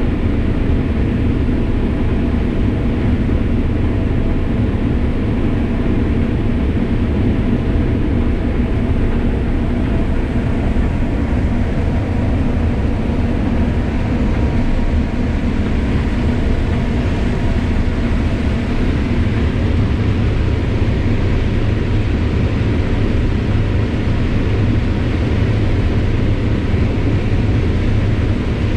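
Combine harvester running steadily while harvesting corn: a constant low machine drone with a few faint steady tones over it.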